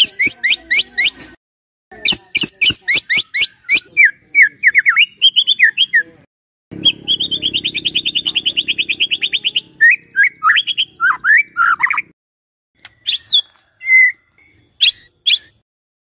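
White-rumped shama singing in runs of sharp, quickly repeated sweeping notes. A fast rattling trill of about nine notes a second comes in the middle, and separate loud calls follow near the end, with short pauses between phrases.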